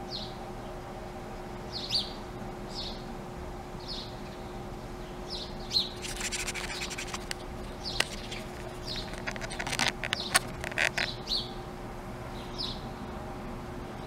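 Small songbirds at a hanging bird feeder: short, high chirps about once a second, with bursts of scratching and clicking about six seconds in and again around ten seconds. A faint steady hum runs underneath.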